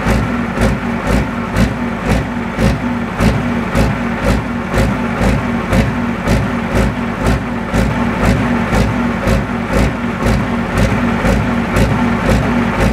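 Pro stock pulling tractor's diesel engine running, with an even pulse about three times a second.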